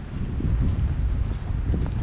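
Wind buffeting the microphone, a loud, gusty low rumble that swells about half a second in.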